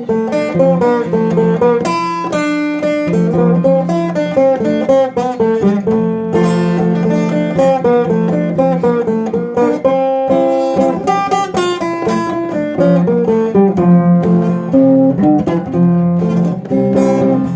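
Instrumental break of a Brazilian country song: acoustic guitar picking a quick melody over a steady strummed and bass accompaniment, with no singing.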